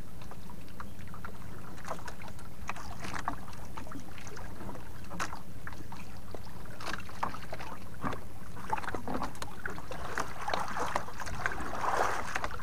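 Water lapping and splashing against a small boat's hull, with scattered knocks and clicks over a steady low rumble. The splashing thickens about ten seconds in.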